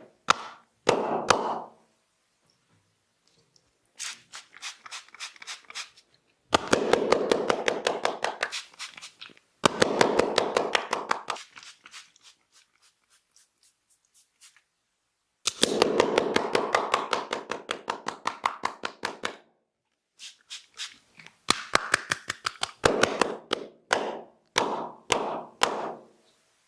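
Rapid percussive massage strokes on skin: quick, sharp slaps about eight a second. They come in runs of two to four seconds with short pauses between, and each run starts loud and fades.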